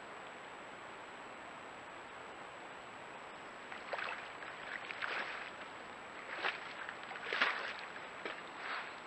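Black bear splashing in a small pond as it wades to the bank and hauls out: a steady hiss at first, then irregular bursts of sloshing water from about four seconds in, the loudest a little past the middle.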